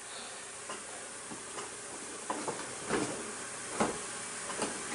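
Steady background hiss with about six light, scattered clicks and knocks of objects being handled.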